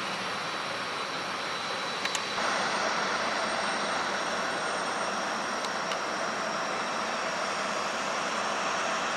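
Passenger jet's engines running with a steady rushing roar and a faint high whine. A couple of clicks come about two seconds in, after which the sound is slightly louder.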